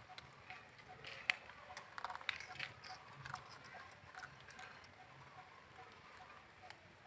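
Faint, scattered crisp clicks and crunches, busiest from about one to three seconds in, with one sharp click near the start of that stretch: a young long-tailed macaque biting and chewing a piece of cucumber.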